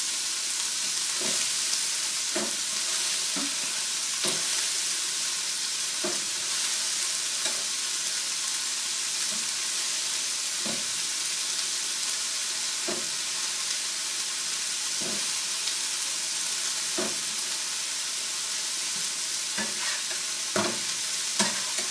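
Square sausage slices and chopped onion sizzling steadily in frying pans, with a dozen or so light clicks and knocks of a spatula against the pan as the sausages are moved and turned.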